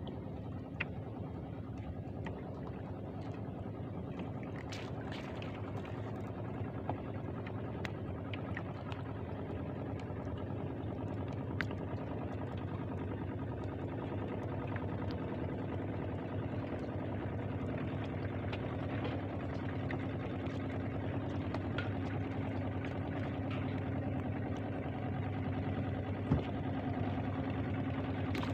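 Small fishing boat's motor running steadily with an even hum that grows a little louder over the stretch, with a few faint clicks and knocks from line handling in the boat.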